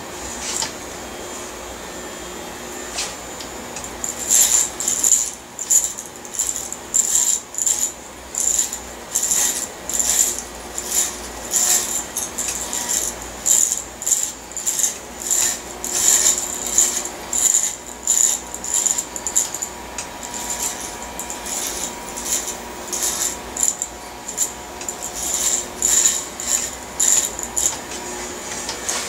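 Electric hair clippers fitted with a 3/4-inch guard running through short hair, with a quick crisp buzzing stroke about once or twice a second as the blades pass through.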